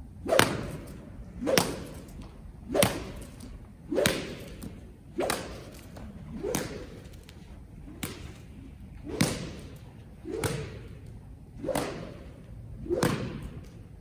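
A horse-training whip with a string lash swung and slapped down in a steady rhythm, about eleven slaps a little over a second apart, each a quick swish ending in a thud, as rhythmic pressure to desensitize a horse to the whip.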